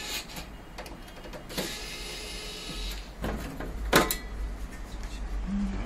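Steel case of a CCTV DVR recorder being handled, its top cover scraping as it is slid back and lifted off. Several knocks, with the loudest, a sharp metal clank, about four seconds in.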